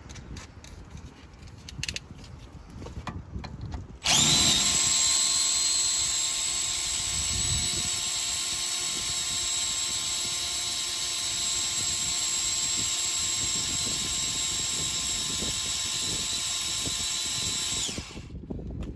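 Electric drill running under load, drilling out a stripped rotor retaining screw, with a steady whine for about fourteen seconds before it stops near the end. A few light clicks of handling come before it starts.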